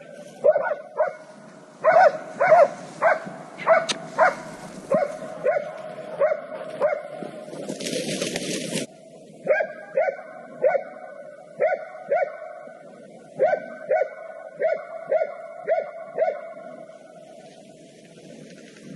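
Hunting laika barking steadily at a steady pace, roughly one to two barks a second, baying at a wild boar; the barking stops about sixteen seconds in. A brief burst of hissing noise comes about eight seconds in.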